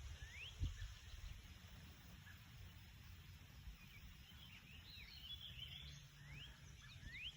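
Faint outdoor ambience: small birds give a few short rising chirps, with a few more together about five seconds in, over a low wind-like rumble.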